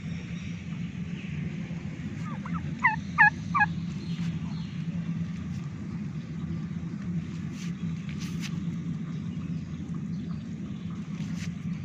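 Domestic turkey calling: a quick run of four short notes about two and a half seconds in, over a steady low hum.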